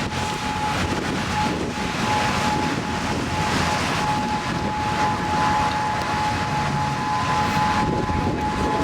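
Steady road and wind noise of a moving vehicle, with a steady high-pitched tone running through it.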